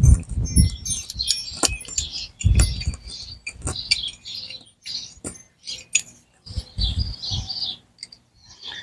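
Irregular metallic clicks and clinks from hand-removing the handle hardware on steel cellar doors, with birds chirping in the background.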